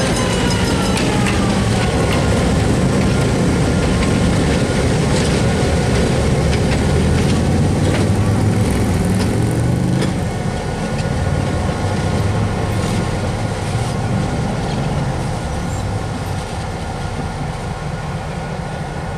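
EMD GP7 diesel-electric locomotive's 567 two-stroke diesel engine running as it rolls close by. A whine falls in pitch over the first two seconds as it passes, and sharp clicks are scattered through. About halfway in, the sound turns quieter and steadier, with a thin high whine over the engine hum.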